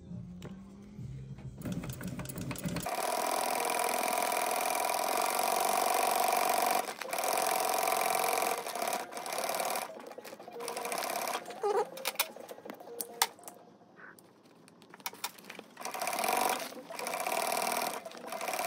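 Industrial twin-needle sewing machine stitching grosgrain binding onto a fabric seam. It runs in several bursts that stop and start as the fabric is guided, with a longer lull in the middle punctuated by a few clicks.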